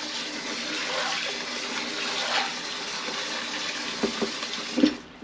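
Kitchen faucet running into a bowl of peas, filling it with water to rinse them, with a steady hiss of flowing water. A few small knocks come just before the flow stops, near the end.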